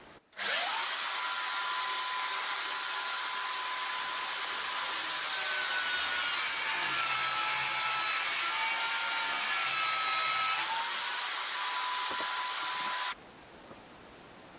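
Electric drill spinning up to a high steady whine. Its pitch drops for several seconds in the middle as it takes load, then recovers before the sound cuts off suddenly near the end.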